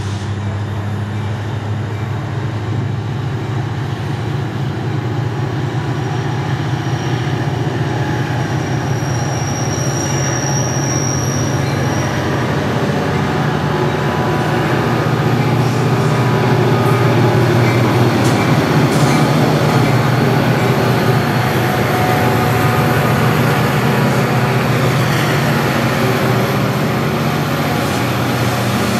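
Two EMD diesel-electric locomotives hauling a loaded rock freight train, throttling up with a steady low engine drone that grows louder to a peak around the middle as the train passes. A thin high wheel squeal comes in about ten seconds in.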